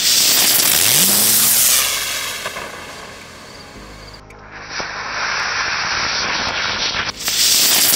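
Homemade charcoal and potassium nitrate rocket motor burning in a static thrust test: a loud rushing hiss of flame and sparks. It starts suddenly and fades after about two seconds, then comes back duller about four seconds in and bright again near the end.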